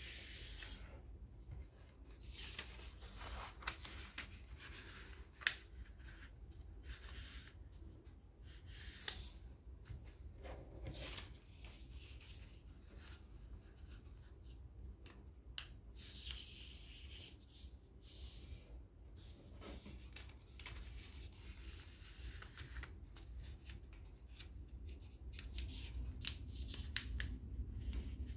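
A sheet of paper being folded and creased by hand: irregular crinkling rustles with a few sharp snaps as folds are pressed, over a low steady hum.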